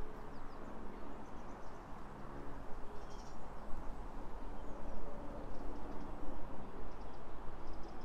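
Small birds chirping faintly here and there, a few calls together about three seconds in and more near the end, over a steady low outdoor hum.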